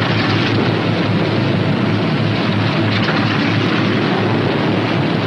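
P-61 Black Widow's Pratt & Whitney R-2800 radial engine running steadily after start-up, a loud even drone with a low hum under a noisy rush.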